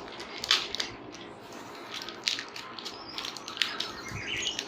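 Rustling and crackling of packaging being handled, with sharp crackles scattered throughout.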